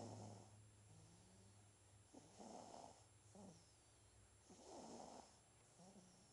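Nine-day-old newborn snoring softly in sleep: three rough snores about two and a half seconds apart, with softer breaths between them.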